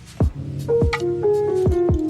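Background music with a beat: deep drum hits that drop quickly in pitch, joined about halfway in by a few held keyboard notes stepping down.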